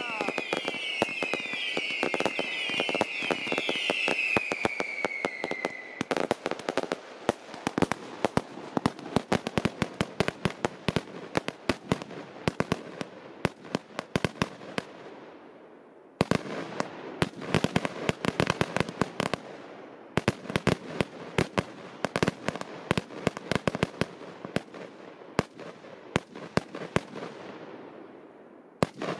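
Fireworks going off: many whistling fireworks shrieking at once over crackling for about six seconds, cutting off together. Then three long barrages of rapid sharp bangs follow, each thinning out before the next starts.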